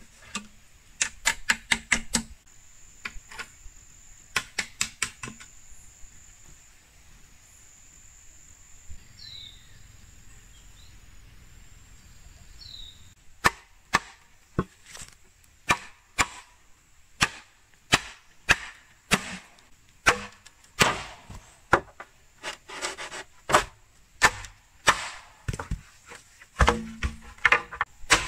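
Machete chopping bamboo, sharp strikes about twice a second from about halfway in. Earlier come two quick flurries of knocks, and in the quieter stretch between them a steady high insect whine and a few bird chirps.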